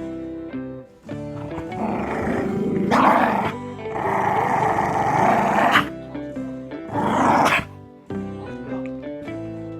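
A dog growling in three bouts, the longest in the middle and a short one near the end, over background acoustic guitar music.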